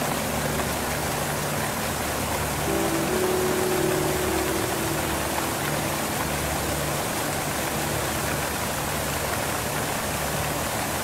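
Background music: held, slowly changing chords over a steady even hiss.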